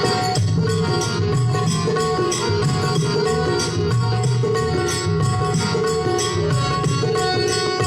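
Instrumental Indian folk-devotional music: harmonium holding steady reed notes over tabla and octopad drum beats, with jhaal (hand cymbals) striking in a regular rhythm; no singing.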